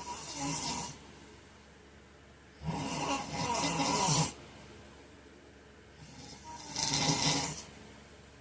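A heavyset man snoring in his sleep: a snore fading out about a second in, then two more loud snores about three and a half seconds apart, with quiet breathing between.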